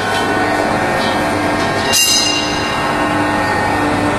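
Machinery running steadily with a low hum and a steady higher tone over a continuous noise, with a short sharp hiss about two seconds in.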